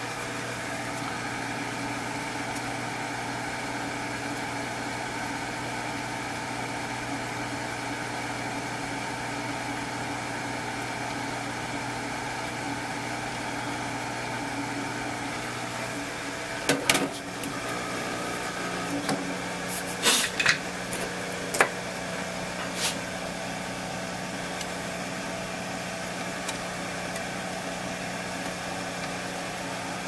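Steady hum of a hot air rework station's blower running. About halfway through there are several sharp clicks and taps, and just after them the hum shifts to a slightly higher pitch.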